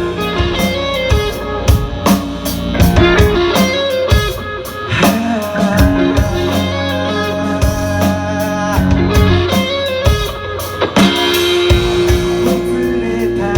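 Instrumental break in a rock band's song: guitars playing over a drum kit, with no singing.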